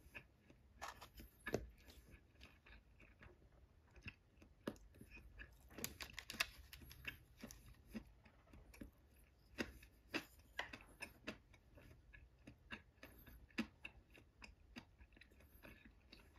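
Quiet eating sounds of a person chewing sushi: irregular soft clicks and smacks, with light clicks of disposable wooden chopsticks.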